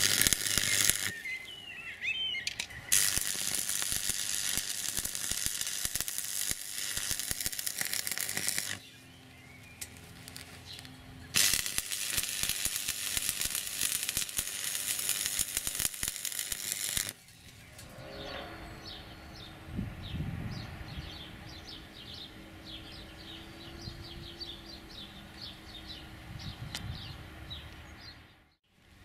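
Stick welding arc crackling and sizzling as steel square tubing is welded, in three runs, the longer two about six seconds each. In the last third, birds chirping.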